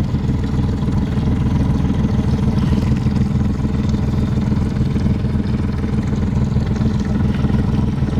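Boat engine running steadily, an even low drone that holds the same pitch throughout.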